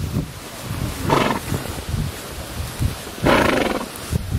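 A galloping horse blowing hard through its nostrils: two loud, rough breaths about two seconds apart, over a low, uneven thudding of hooves.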